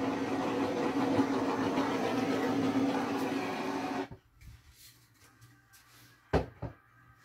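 Handheld gas torch flame running with a steady rushing hiss and low hum, cut off sharply about four seconds in. Two light knocks follow a little before the end.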